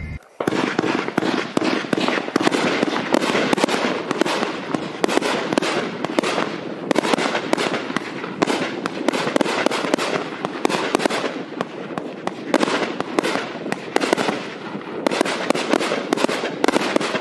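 A 42-shot, 1.2-inch 1.4G fireworks cake firing in a fast, dense volley, shot after shot too close together to count, with the sharp reports of shells launching and breaking. It starts just after a brief pause, a fraction of a second in.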